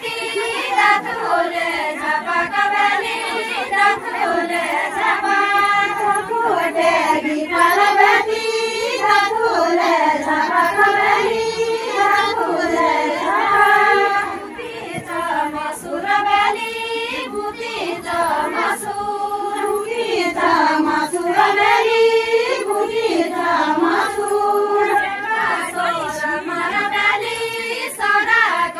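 A large group of women singing a Garhwali folk song together in chorus, with many voices in sung phrases that rise and fall, for a linked-arm circle dance.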